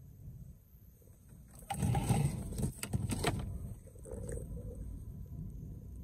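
Rustling with several sharp clicks from a loose wiring harness with plastic connectors being handled and set down on a dashboard, lasting about a second and a half from roughly two seconds in.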